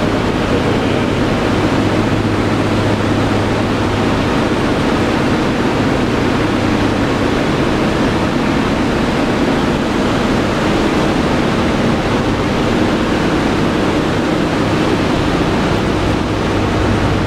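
Loud, steady drone of the B-17 Flying Fortress's four Wright R-1820 Cyclone radial engines, heard from inside the fuselage. A low hum in it fades a few seconds in and returns near the end.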